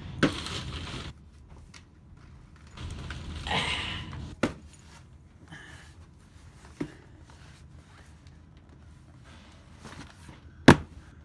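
A large cardboard box being handled and set down on a table: rustling movement and a few separate knocks, then one sharp, loud thump about a second before the end as the box lands.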